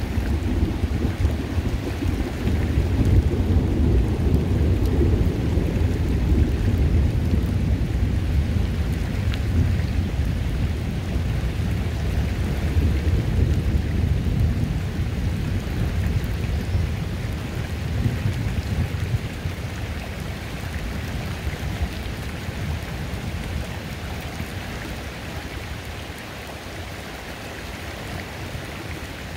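Rain falling on a creek: a steady hiss of rain and water with a deep rumble underneath that fades away over the last third.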